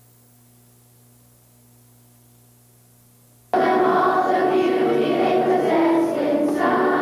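Faint steady electrical hum, then about halfway through a children's choir singing cuts in abruptly at full loudness, as at a videotape edit.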